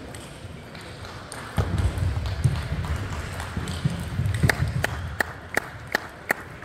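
Table tennis ball clicking off bats and the table in a rally, then about six sharp ball bounces, roughly three a second, near the end.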